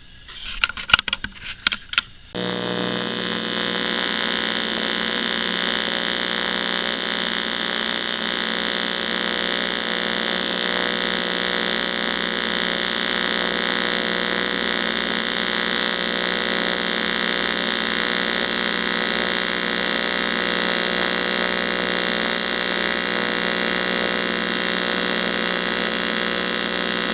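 AC TIG welding arc on aluminum from an AHP AlphaTIG 200X set to the standard 60 Hz AC frequency, buzzing steadily once it strikes about two seconds in, after a few short clicks.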